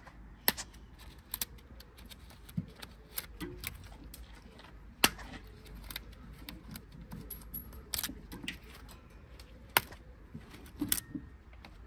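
Side cutters snipping off the ties that hold the rocker shaft springs compressed on a Land Rover 2.25 petrol engine: a series of irregular sharp snips and small metallic clicks, about ten loud ones spread out.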